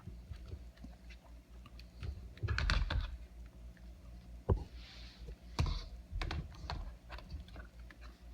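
Typing on a computer keyboard: irregular key clicks, with a quick run of louder keystrokes about two and a half seconds in and a few single harder strikes after it.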